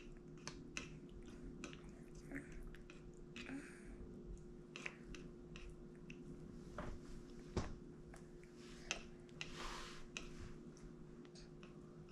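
A baby chewing soft durian, with faint scattered mouth clicks and wet smacks, plus small taps of his fingers on the plastic high-chair tray.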